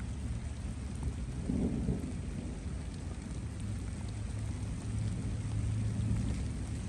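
Rain falling steadily, with a low rumble that swells briefly about a second and a half in.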